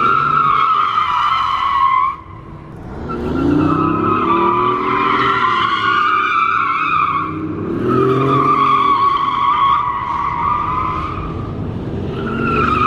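A car sliding around a parking lot, its tyres squealing in long screeches broken briefly about two seconds in, with the engine revving up and down underneath.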